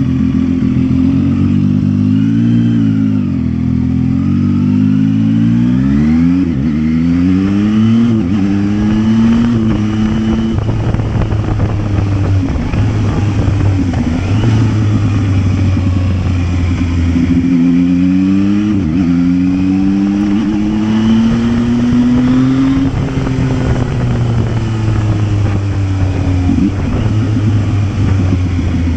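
Zontes 703F motorcycle engine on its stock exhaust, under way. In the first ten seconds it rises in pitch through several gear changes, and it does so again about two-thirds of the way in. Between these it holds a steady cruising note.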